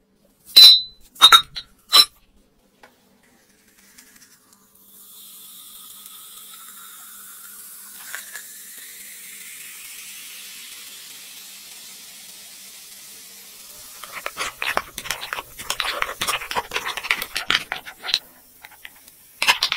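Three sharp clinks near the start, then a fizzy drink poured into a glass beer mug for several seconds, the pouring tone rising as the mug fills. In the last few seconds there is dense, loud crackling and clinking as the fizzing drink is stirred with a straw.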